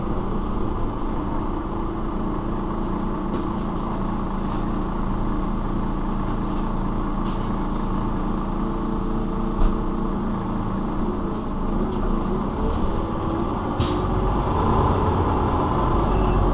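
Iveco Urbanway 12 city bus running with a steady engine drone. From about four seconds in, a high-pitched beep repeats for several seconds. There is a sharp knock near the middle, and the bus gets louder near the end.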